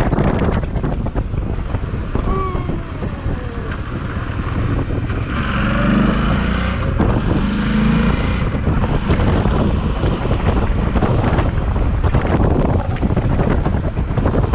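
Long freight train rolling past at close range, its wheels rumbling and clattering steadily on the rails, with wind buffeting the microphone. A louder stretch with some pitched squealing comes through about six to eight seconds in.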